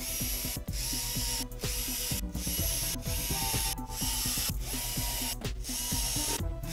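Ratcheting screwdriver clicking in repeated back-and-forth strokes, with short breaks between strokes, as screws are driven into a subwoofer's metal amplifier panel.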